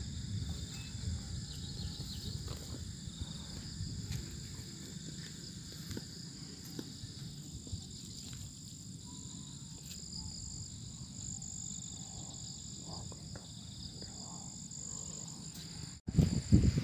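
Steady insect chorus: several high droning tones at once, over a low rumble of wind on the microphone. It breaks off abruptly near the end.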